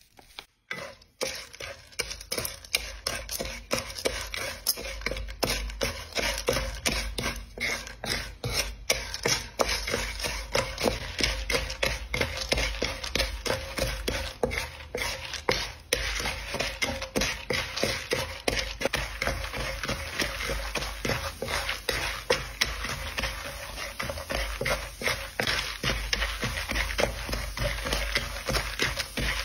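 Popcorn kernels, sugar and oil sizzling in a nonstick wok while a wooden spatula stirs them: a dense, steady crackle of small clicks with scraping against the pan.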